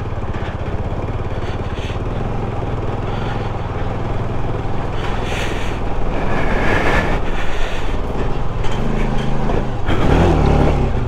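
Motorcycle engine running steadily at low speed as the bike is ridden slowly, a low even drone, with a few brief swells of higher noise around the middle and near the end.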